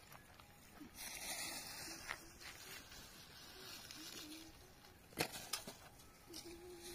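Faint outdoor ambience with a few light sharp knocks, the loudest a little after five seconds in, and a faint low tone that comes and goes.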